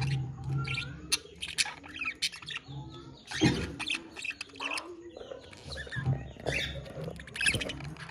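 Budgerigars singing together in a busy, continuous warble of short chirps and gliding notes.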